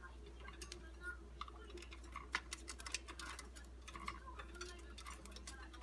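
Faint, irregular clicking and tapping from a pet cockatiel moving about, with a few very soft, short chirps in between.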